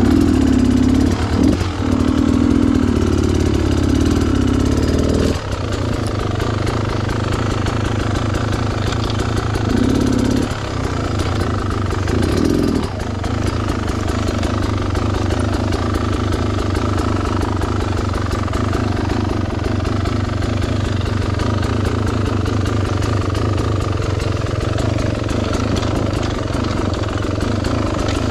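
Beta Xtrainer two-stroke dirt bike engine running at low revs, opened up in louder throttle surges over the first five seconds and twice more briefly near the middle, then running steadily.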